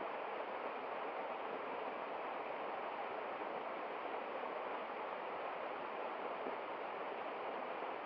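Small waterfall splashing down a rock face in a steady, even rush of falling water.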